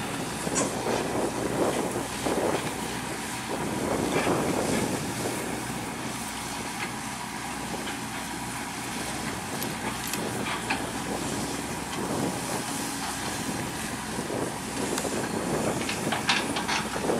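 Heavy machinery engine running steadily, with wind gusting on the microphone and a few short metallic clanks.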